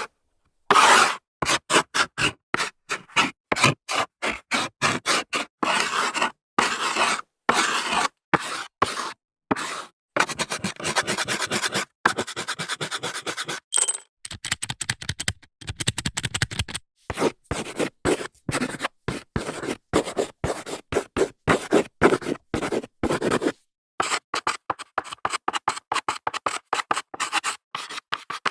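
Chalk scratching on a blackboard in quick, short strokes, as in writing, with brief pauses between runs of strokes.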